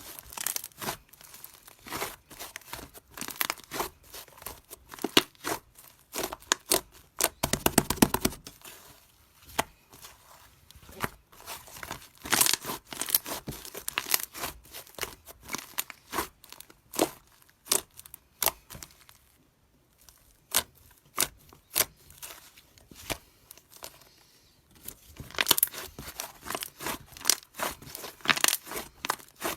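Clear slime being squished and pressed by hand, making a run of irregular small clicks and pops. There is a denser stretch about a quarter of the way in, a short lull past the middle, and busy clicking again near the end.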